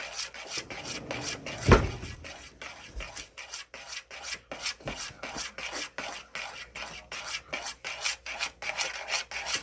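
A utensil scraping round a pot or bowl in quick repeated strokes, about three a second, with one louder knock against the side near the start, as play-doh dough is stirred.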